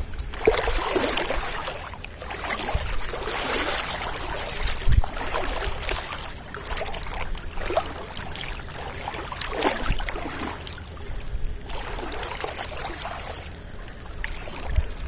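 Floodwater sloshing and splashing, an uneven watery noise that swells and fades.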